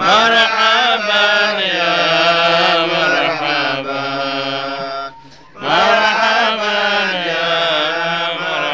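Men's voices chanting an Arabic devotional song (nasheed) without instruments, in long, drawn-out melodic phrases. There is a short break for breath about five seconds in.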